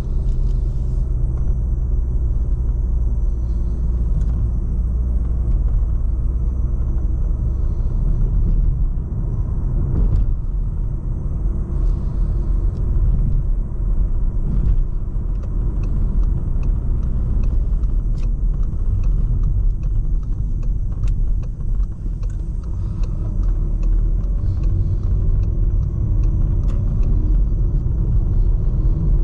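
Volkswagen Golf VII 1.6 TDI 110 hp four-cylinder diesel running on the move, with a steady low rumble of engine and tyres on the road. Near the end the engine note rises as it pulls.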